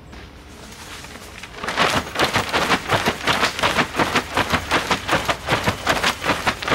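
Fabric travel cover of a Thule Tepui rooftop tent being pulled and worked down over the folded tent. The stiff fabric rustles in a quick run of strokes, several a second, starting a little under two seconds in.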